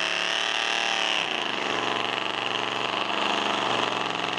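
Pickup truck's engine revving hard as the truck pushes through a mud-bog pit. Its pitch drops a little just over a second in, then holds steady.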